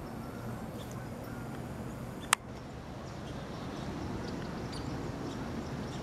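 Outdoor riverside ambience: a steady low rumble of wind and handling noise with a few faint bird chirps, broken by one sharp click a little over two seconds in.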